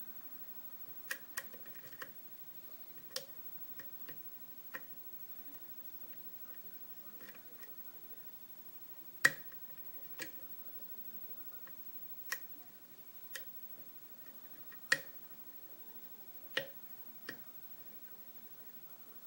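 Sharp, irregular metallic clicks of a lock pick working the pins of a five-pin euro cylinder under light tension, spaced from under a second to a few seconds apart. The loudest come about nine and fifteen seconds in.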